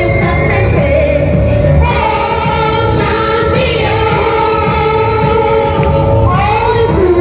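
Women singing a Hindi film song medley over backing music with a steady beat, holding long notes in the middle of the phrase.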